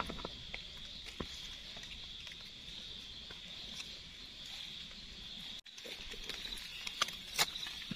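Faint, steady high chirring of forest insects, with light rustling of dry leaf litter and a few sharper snaps of twigs near the end as the forest floor is disturbed.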